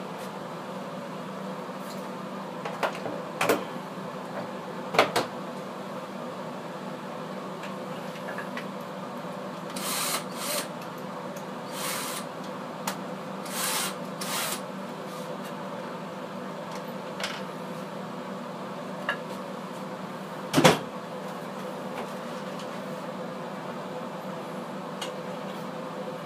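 Scattered sharp knocks and a run of short scraping noises over a steady low hum. The loudest knock comes about two-thirds of the way through.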